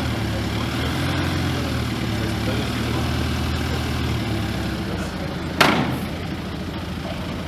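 Volkswagen Amarok pickup's engine running slowly at low revs as it crawls over steel off-road ramps, with a single loud bang about five and a half seconds in as the truck comes down the ramp.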